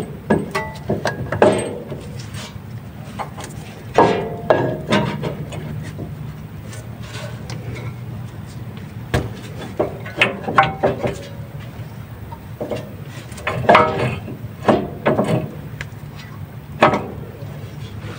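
Cast-iron front brake caliper being worked back onto its mounting over a new rotor: irregular metal clanks and knocks as it is shifted into place, a few ringing briefly.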